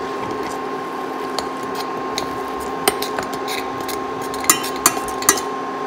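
Metal spoon stirring and scraping thick starch paste in a stainless steel saucepan, with sharp clinks of the spoon against the pan, three of them close together near the end, over a steady hum.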